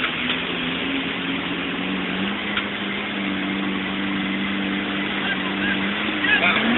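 Off-road 4x4's engine running at a steady low pitch while crossing a river, rising as it revs up near the end.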